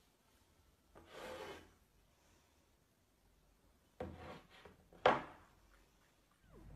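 Hands rubbing across a hard tabletop about a second in, then a run of scraping and knocking about four seconds in as a small bowl is picked up from the table, the loudest a single sharp knock.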